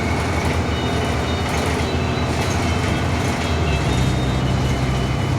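2015 Blue Bird Vision school bus heard from inside the cabin while driving: steady engine and road noise. The engine's low hum steps up in pitch about four seconds in.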